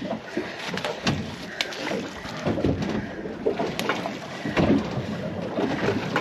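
A large shark being dragged over the gunwale into a fiberglass boat: irregular knocks, thumps and scrapes of its body against the hull and deck, with water splashing, heaviest a little past the middle.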